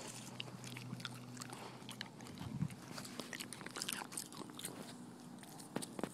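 Soft, irregular clicks and rustles close to the microphone from a Staffordshire Bull Terrier nosing right up against the camera.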